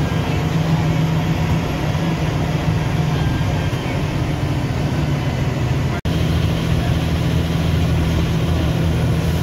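Steady engine drone and road noise inside the cabin of a moving MSRTC Shivshahi bus, broken by a momentary dropout about six seconds in.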